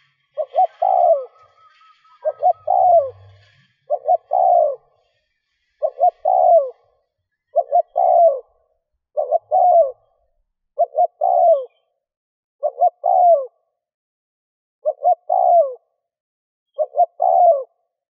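Spotted dove cooing, repeating the same phrase about every two seconds, some ten times: two short notes then a longer, falling coo.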